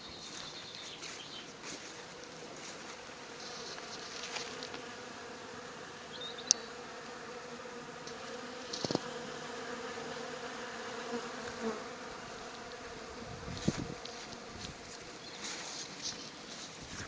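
Honey bees buzzing in flight, a steady drone throughout, with a few brief clicks; the sharpest comes about six and a half seconds in.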